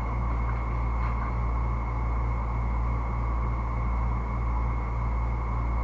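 Steady low hum with a thin high whine and even hiss, unchanging throughout: constant room or recording noise.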